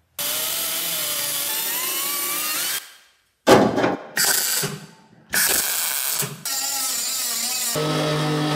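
Power tools working car sheet metal in quick succession: a motor run whose pitch rises steadily, short bursts after a break, then a handheld sander running steadily on bare steel floor panel.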